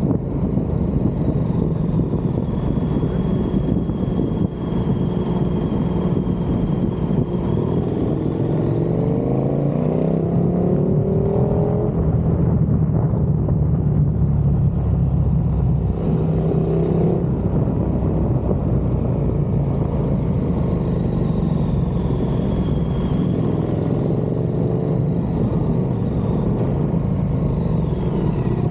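KTM 1290 Super Duke R's V-twin engine running under way, its note climbing in pitch as the bike accelerates about eight to twelve seconds in, with another brief rise around sixteen seconds.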